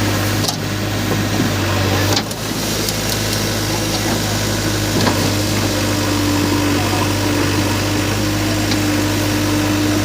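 Heavy diesel engine of the backhoe loader or tractor running steadily, with a low, even hum. There are two brief clicks with small dips in level, about half a second and about two seconds in.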